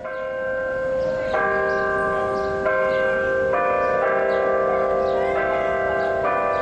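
The Delacorte Musical Clock's bells chiming a slow tune. A new note or chord is struck about every second, and each rings on under the next.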